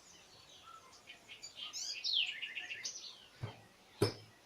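Songbirds chirping, with a quick run of falling notes about two seconds in. Two sharp knocks follow near the end, the second the loudest.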